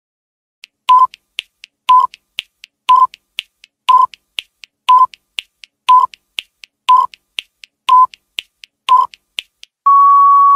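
Countdown timer sound effect: a short beep every second, nine in all, with fainter ticks between them, then a longer steady beep as the count reaches zero near the end.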